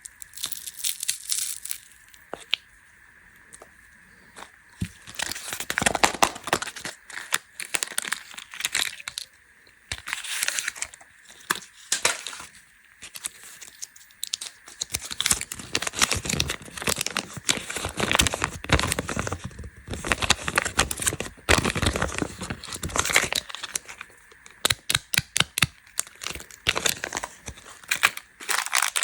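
Plastic candy wrappers being crinkled and torn open, with irregular crackling and rustling. It is sparse for the first few seconds and busier from about five seconds in, with quick runs of sharp crackles near the end.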